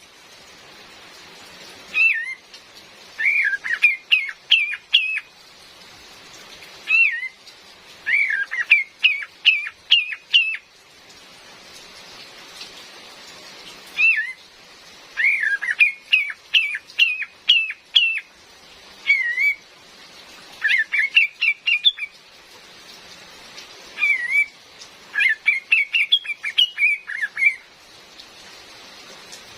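Female kapas tembak, a bulbul, calling in repeated phrases every few seconds: each a swooping note followed by a quick run of short, sharp notes. A steady hiss of rain runs underneath.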